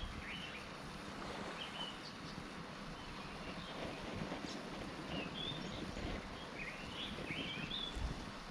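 Birds chirping in short scattered calls over a steady outdoor background rush.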